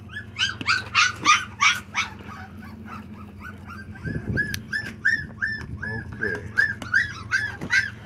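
Young American bully puppies whining and yelping: a quick run of high cries at the start, then a steady series of short whines about two a second.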